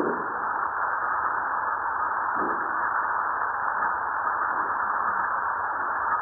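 Sped-up seismometer recording of Fuego volcano played as sound: a steady hiss of background ground noise, with a short, faint low swish at the start and another about two and a half seconds in, marking small seismic events.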